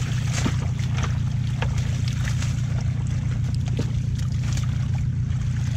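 A steady low motor drone runs throughout. Scattered splashes and rustles come from a fishing net being hauled through water hyacinth.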